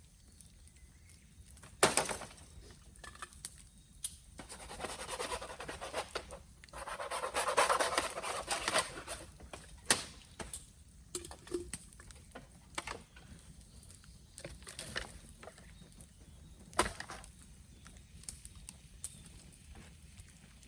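Bamboo burning in an open fire: steady crackling with sharp pops, three of them loud, about two, ten and seventeen seconds in, and a hissing rush that swells from about four to nine seconds in.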